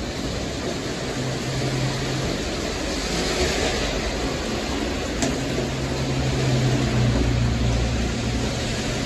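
Traffic on a rain-soaked street: tyres hissing through the wet road as vehicles pass, over a steady wash of noise and a low engine hum that comes and goes. One sharp click a little after five seconds in.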